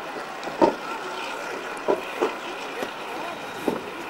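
Diesel-hydraulic locomotives running, a steady hum with a faint high whine, broken by a few short, sharp sounds. The loudest comes about half a second in, and three more come later.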